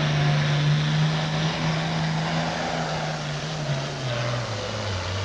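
Heavy super stock diesel pulling tractor running at full power under load, belching black smoke, its engine note held steady and then dropping in pitch about four seconds in.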